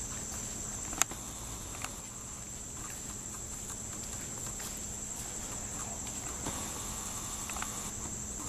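Insects chirring steadily at a high pitch, with a single sharp click about a second in and a few faint taps.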